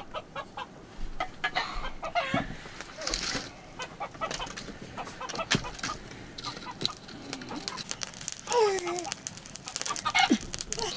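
Domestic chickens clucking, a few short calls spread through, among scattered clicks and knocks.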